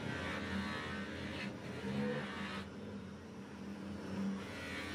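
Bench-mounted electric motor running with a steady hum while a steel scissor blade is held against its spinning wheel, giving a hissing grind. About two and a half seconds in the blade comes off the wheel and only the motor hum remains, then the grinding starts again near the end.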